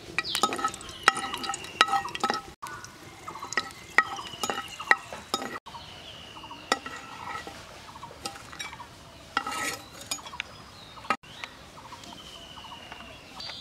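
A metal utensil stirring and clinking against a frying pan as dried red chilies are turned in hot oil and lifted out, with sharp irregular knocks and a light sizzle.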